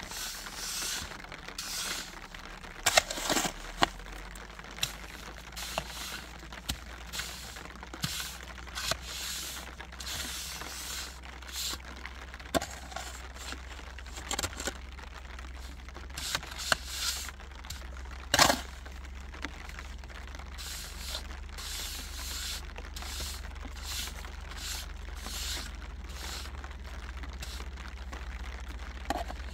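Irregular rustling and scraping from hands-on work, with a few sharp knocks, the loudest about three seconds in and again near the middle, over a steady low hum.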